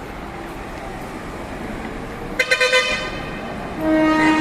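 Truck air horn honking: a quick stutter of short blasts about two and a half seconds in, then a long, loud held blast starting near the end.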